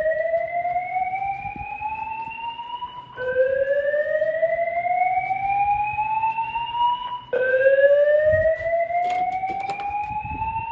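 Fire alarm voice-evacuation speakers sounding a slow whoop evacuation tone: a rising sweep about four seconds long, heard three times over. The tone signals that the alarm is active and the building must be evacuated.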